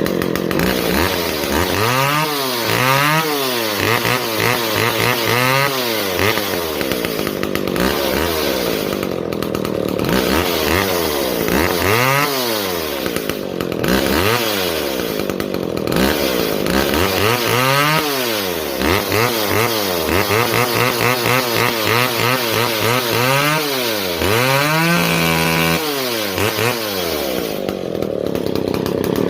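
Chainsaw engine revved up and down over and over, its pitch climbing and dropping many times, at times held at high revs for a few seconds, with a run of quick blips near the end.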